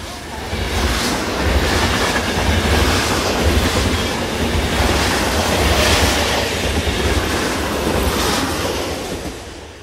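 A train running past close by: a loud, steady rumble with the clatter of its wheels on the rails, dying away near the end.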